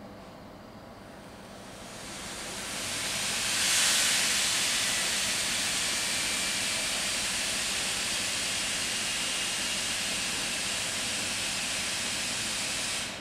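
A loud, steady hiss that swells over the first few seconds, holds evenly, and cuts off abruptly near the end.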